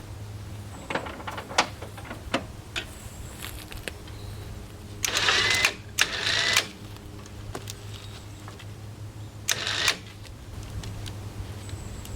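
Metal chain clinking and rattling on a log arch: scattered sharp clicks, then a few short bursts of clattering about five, six and nine and a half seconds in, over a steady low engine hum.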